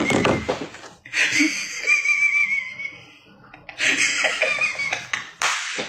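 A man laughing hard in bursts, with a high, wavering note about two seconds in, a short lull, then more laughter.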